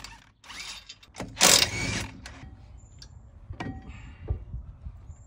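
A cordless power tool runs in one short burst about a second in, spinning out a 15 mm brake caliper bolt, followed by a couple of sharp metal clicks as the caliper is worked loose.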